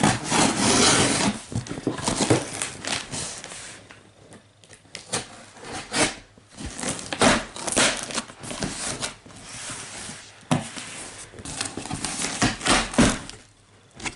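A large cardboard delivery box being opened by hand: irregular tearing, rustling and crinkling with scattered sharp knocks.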